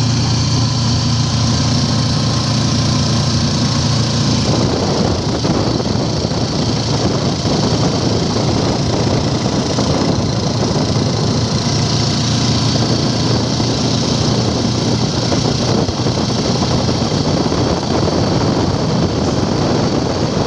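Motorcycle engine of a tricycle (motorcycle with sidecar) running on the road, heard from inside the sidecar. A steady low engine hum for the first few seconds, then a rougher, noisier running sound from about four seconds in.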